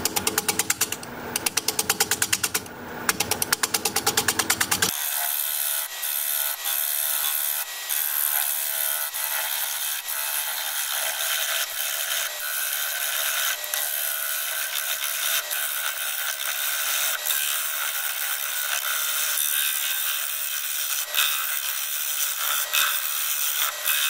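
A bowl gouge cutting into a cracked juniper blank spinning on a wood lathe. For the first few seconds it makes a rapid, regular ticking as the tool meets the cracks and voids in the wood each turn, then it settles into a steady hissing cut.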